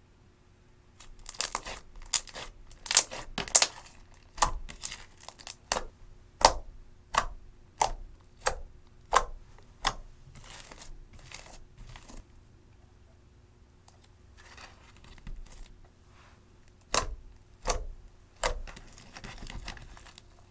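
Eyeshadow-tinted clear slime being pressed and stretched by hand, giving a crackle and then a run of sharp pops, about one and a half a second, as air pockets burst; a few more pops and a crackle come near the end.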